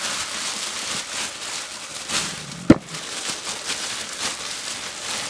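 Plastic bubble wrap crinkling and crackling as it is pulled open by hand. There is one sharp pop about two and a half seconds in.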